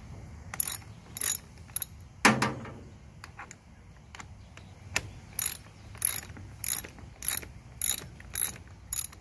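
Ratchet wrench clicking in short back-and-forth strokes, working a nut or bolt on a mower's self-propel gear drive. A few strokes come first, then a pause, then a steady run of strokes a little under two a second.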